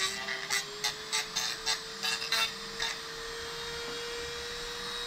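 Small handheld rotary grinder running with a steady high whine, its bit scraping a 3D-printed plastic part in quick, irregular strokes for the first three seconds, then running steadily.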